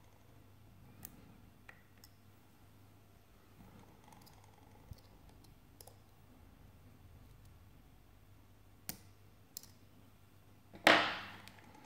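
Faint metallic clicks of a pick and tension wrench working the pins of an Avocet ABS euro cylinder lock, with one much louder sharp click and a brief ring near the end.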